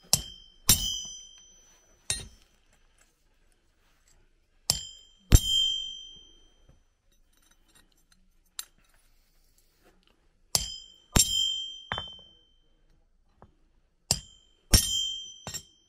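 Hand hammer striking a steel letter punch held on a horseshoe on the anvil, stamping letters into the iron. About a dozen sharp ringing blows come in twos and threes, a few seconds apart.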